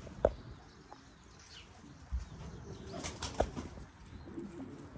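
Domestic pigeons flapping their wings as they move about the flock on the ground, with a sharp tap about a quarter second in and a few more short taps around three seconds.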